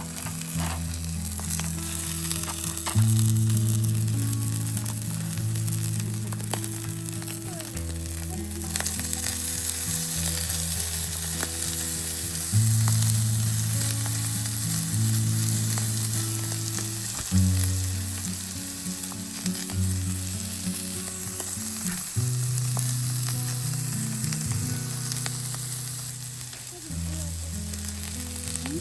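Food sizzling as it fries: a steady hiss with small pops. Background music with slow, sustained low notes plays under it.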